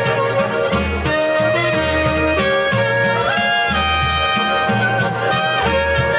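Live band playing an instrumental passage: long held melody notes over a steady pulsing bass line.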